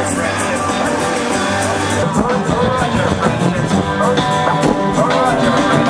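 Rock music with guitars and a singing voice.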